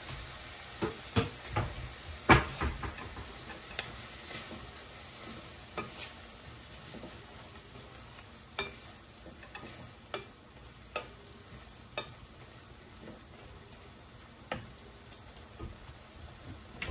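Wooden spatula stirring clams in a stainless steel pan, knocking and scraping against the pan over a steady sizzle as the clams cook in soy sauce. The knocks come thick in the first few seconds, loudest about two seconds in, then thin out to one every second or so.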